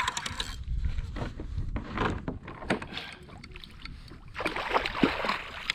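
Water splashing and irregular knocks and clatter on a kayak while a freshly caught kahawai is handled.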